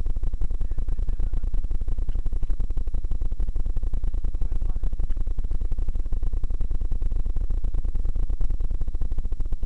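Wind buffeting the microphone of a camera riding along on a mountain bike, heard as a loud, steady low rumble broken by rapid jolts and rattles from the rough dirt trail.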